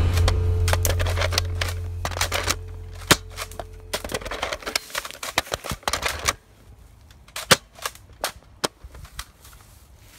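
Gunshots going off singly and at irregular intervals, some in quick succession, with the loudest about three and seven and a half seconds in. A low music bed fades out under them by about six seconds in.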